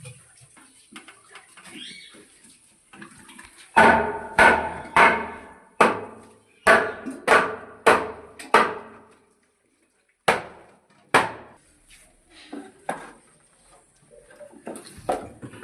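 Hammer blows in a woodworking job, each strike sharp and ringing briefly: a run of about eight, roughly two a second, then a pause and two more. Lighter taps and knocks come before and after.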